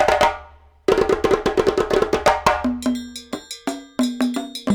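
Percussive music: a fast run of sharp drum-like strikes, with a low pitched note sounding under each strike from about halfway in.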